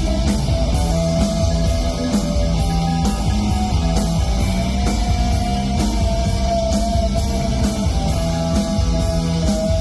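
Live rock band playing an instrumental passage: distorted electric guitars over bass and a steadily hit drum kit, with a held lead-guitar line.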